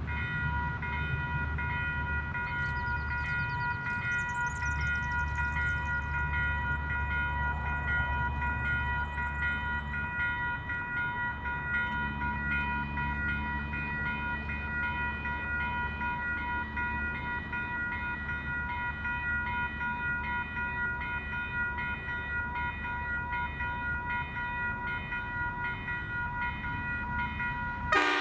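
Western Cullen Hayes Type 4 electronic level-crossing bell (E-Bell) ringing steadily with a regular repeated strike, signalling an approaching train, over a low rumble. Right at the end a loud burst comes as the Qube diesel locomotive reaches the crossing, its horn sounding.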